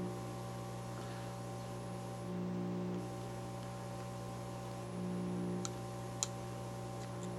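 Steady electrical mains hum whose low buzz swells briefly about every two and a half seconds, with a sharp tick near the end.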